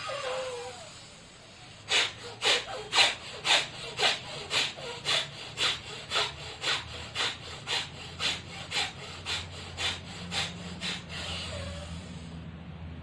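Forceful rhythmic bhastrika (bellows) breaths through one nostril, about two strokes a second, around eighteen in all. The first strokes are the strongest, they grow weaker toward the end, and they stop about eleven seconds in.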